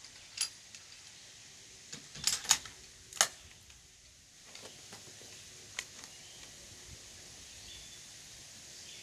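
Sharp metallic clicks of a Winchester Model 70 bolt-action rifle being loaded and its bolt worked. One click comes in the first half second, a quick run of three louder clacks comes between two and three and a half seconds in, and a lighter click comes near six seconds.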